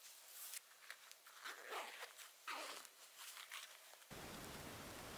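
Faint, irregular rustling and zip-like scrapes of outdoor clothing and gear being handled, a few short strokes at a time. About four seconds in it gives way abruptly to a steady hiss.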